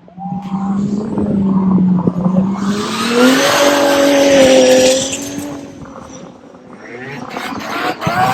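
V8 Supercar engine at racing speed: it climbs in pitch as the car accelerates, is loudest about three to five seconds in, then fades away. A second car's V8 swells up loudly near the end.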